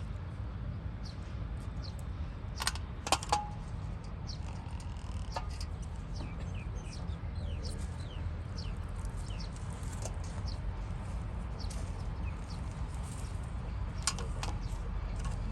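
Small birds chirping over and over in short falling calls above a steady low hum, with a few sharp clicks about three seconds in and again near the end.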